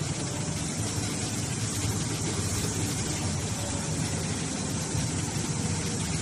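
Cotton hydraulic baler running: a steady machine hum with an even hiss over it.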